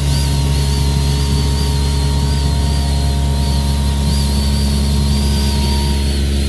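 Guzzcavator vacuum excavator running steadily: a deep engine drone with a high, slightly wavering whine over it.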